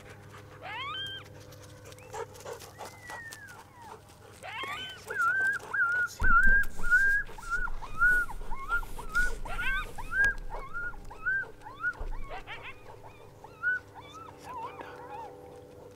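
Canine yipping and whining: a few rising whines, then a fast run of short, high yelps, about two a second, each rising and falling in pitch, tailing off near the end.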